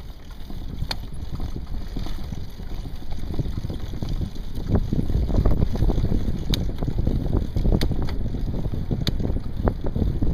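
Wind buffeting the microphone of a bike-mounted camera while riding, a steady low rumble that grows louder about four seconds in, with a few sharp clicks.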